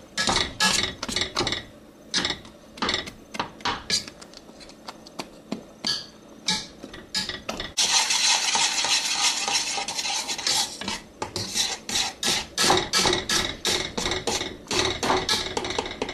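Potato masher knocking and scraping against a heavy cooking pan as it mashes and stirs a thick melted chocolate-and-marshmallow fudge mixture: a run of quick irregular knocks, with a stretch of continuous scraping about halfway through.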